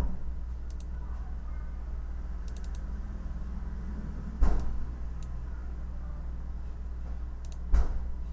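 Sparse computer keyboard key taps, a few light clicks with two heavier key strikes about halfway and near the end, over a steady low hum.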